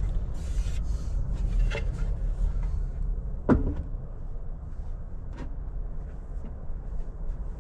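Solid-wood splashback board being handled and set against a worktop: a few knocks of wood on wood, the sharpest about halfway through, over a steady low rumble.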